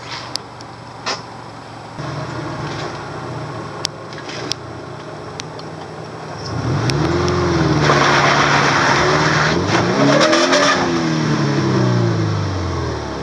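A first-generation Subaru Forester's engine labouring up a rock climb, revved hard about halfway through with the pitch rising and falling twice before easing off. A rough scrabbling noise comes over the peak of the revs, with a few sharp knocks earlier.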